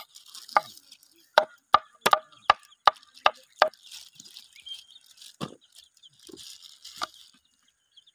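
Knife chopping young jackfruit into chunks on a board: a quick run of about eight sharp chops, then a few slower, single ones.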